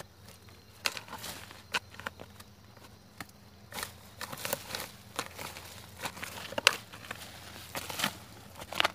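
Steel hoe chopping and scraping into soil and sweet potato vines while digging sweet potatoes: irregular crunching strikes and scrapes, the sharpest one about two-thirds of the way through.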